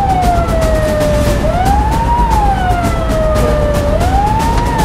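Patrol boat siren wailing in a repeating cycle, rising quickly and then falling slowly about every two and a half seconds, over a loud steady low rumble.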